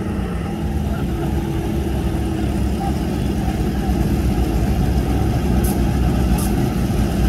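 Drag-racing motorcycle engines idling, a steady low rumble that builds slightly, with two short high clicks near the end.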